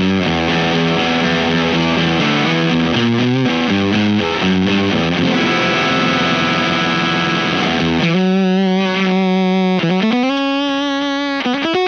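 Electric guitar, a Fano Omnis MG6 with a P90 pickup, played through a Space Sounds Galactic Fuzz pedal. It plays thick, fuzzy chords in a riff, then about eight seconds in a clearer single sustained note that bends down and back up, followed by a few quick notes near the end.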